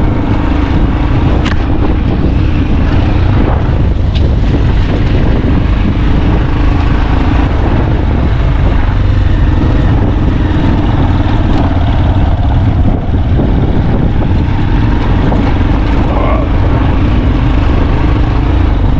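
A moving vehicle's engine runs steadily, with road and wind noise, at an even, loud level and no change in speed.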